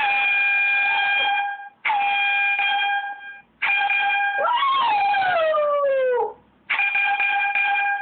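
Air horn app sounding from a phone speaker in four steady one-pitch blasts. During the third blast a shih tzu howls along, its howl sliding down in pitch for about two seconds.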